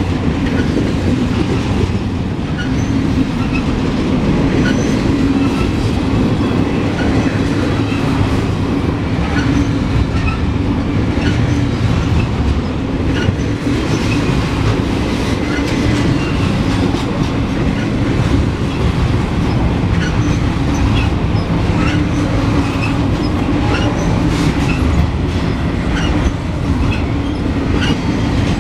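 Loud, steady rumble of a double-stack intermodal freight train's well cars rolling past, steel wheels on rail, with scattered clicks as the wheels cross rail joints.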